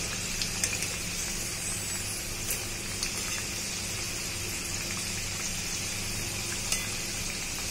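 Spring rolls deep-frying in hot oil in a metal kadhai, a steady sizzle, with a few light clicks of a slotted spoon against the pan as the rolls are turned.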